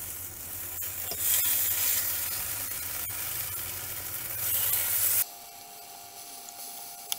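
Zucchini fritters sizzling in hot oil in a frying pan while they are turned over with a fork, with light clicks of the fork against the pan. About five seconds in the sizzle cuts off suddenly, leaving a faint steady hum.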